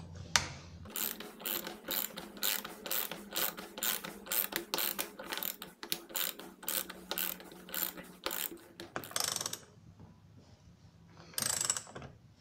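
The pawl of a PROMAKER 1/2-inch drive ratchet clicks rapidly and evenly, about four clicks a second, as it drives a hex-head screw into wood. The clicking stops about nine seconds in, and a short burst of clicks comes near the end.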